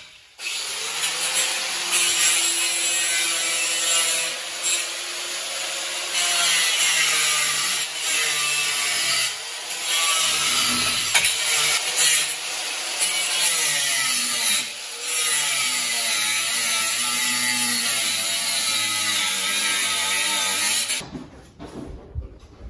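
Handheld angle grinder cutting into a metal floor trim strip inside a school bus. The motor's pitch wavers as the disc bites, with a few short breaks. It stops near the end.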